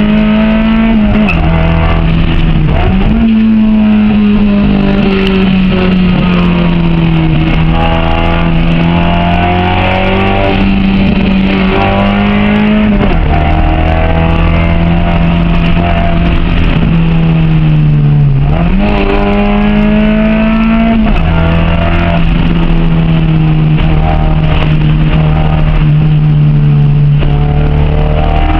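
Honda H22A four-cylinder engine in a Civic driven hard up a hill climb, its engine speed rising and falling with several sudden gear changes.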